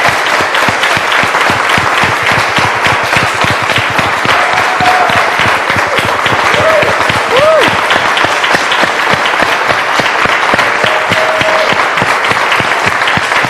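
Congregation applauding steadily, a dense patter of many hands clapping at once.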